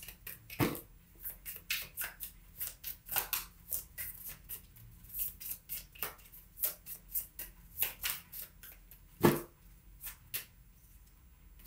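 A deck of tarot cards being shuffled by hand: a quick, irregular run of crisp card riffles and slaps, with two louder knocks, one near the start and a stronger one about nine seconds in.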